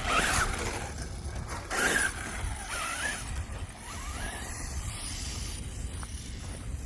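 Brushless electric RC car motor whining, rising and falling in pitch as the car speeds up and slows, heard over a steady low wind rumble on the microphone.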